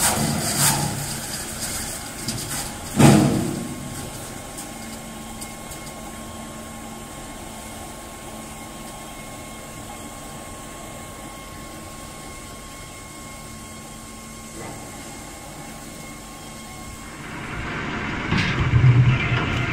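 Veneer peeling line machinery running: a steady hum with a thin whine, a loud knock about three seconds in, and near the end louder, rougher noise with knocks as a log turns against the spiked rollers of the log debarker.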